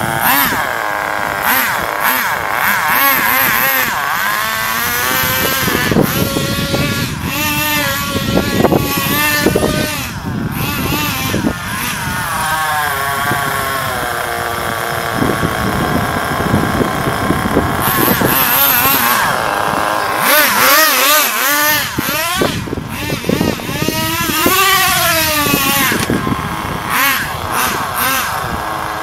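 A 1/10-scale HPI RC car driven at full throttle, its engine note rising and falling over and over as it accelerates, backs off and passes by.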